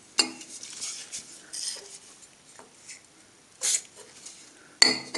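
Thin stainless steel plates handled and wiped on a steel workbench: a metal clink just after the start, rubbing and scraping as a plate is wiped clean, and a louder ringing clink of metal on metal near the end.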